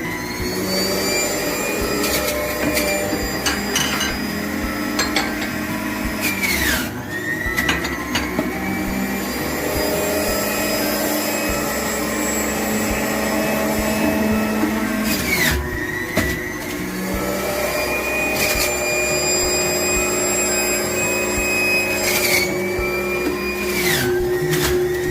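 Electric kitchen appliance motor running at high speed while processing fruit and vegetables, a steady whine whose pitch dips briefly and recovers three times, roughly every eight seconds, as the load comes on, with scattered clicks.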